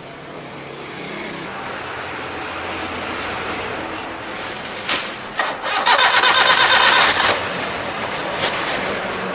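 Car engine running under the open hood, a steady mechanical hum. About halfway through comes a loud, fast rattling buzz lasting about a second and a half.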